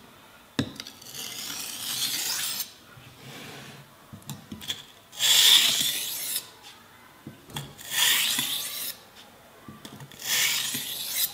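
Knife blade drawn across a wet 400-grit water stone in four long scraping strokes with short pauses between: light edge-trailing passes that lay the burr over and away from the edge of a soft-steel kitchen knife.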